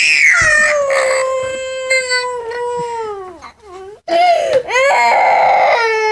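Toddler having a crying meltdown: one long drawn-out wail that slowly sinks in pitch and trails off, a short break about four seconds in, then a second, wavering wail.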